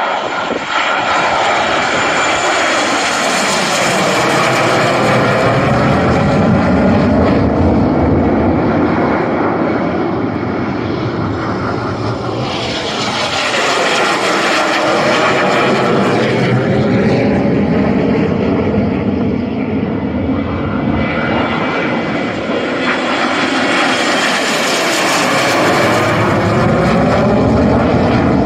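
Red Arrows BAE Hawk T1 jets, with Rolls-Royce Turbomeca Adour turbofan engines, flying past low in formation. The jet noise swells and fades three times, and the pitch drops as each group goes by.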